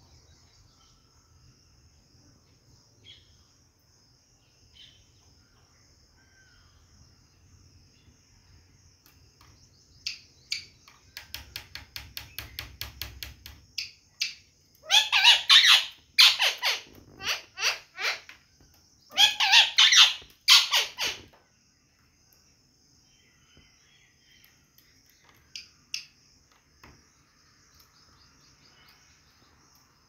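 Rose-ringed parakeet screeching: two bouts of loud, harsh calls about halfway through, the second a few seconds after the first, each made of several calls in quick succession. Just before them comes a run of rapid clicks, about six a second, for a few seconds. A faint steady high-pitched hiss lies underneath.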